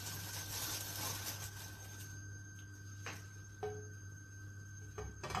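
Plastic bread bag rustling as slices are pulled out, then a few light taps as the bread slices are set into a frying pan.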